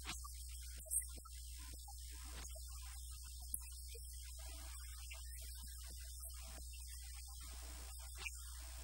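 Steady low electrical mains hum in the audio feed, with voices barely audible beneath it. A sharp click about a second in, and fainter clicks later.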